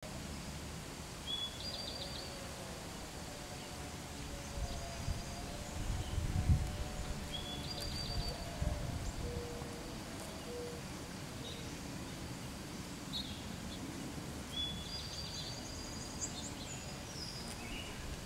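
Outdoor meadow ambience with a songbird repeating the same short phrase three times, about six seconds apart: a brief high note, then a quick trill. A low rumble swells around the middle and is the loudest part.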